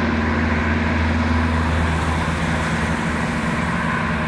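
Twin-engine jet airliner on final approach with landing gear down, its engines giving a steady drone with a low hum.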